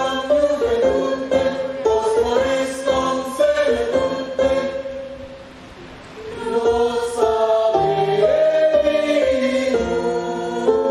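A group of women singing together into microphones. Their singing dips in level just past the middle and then comes back.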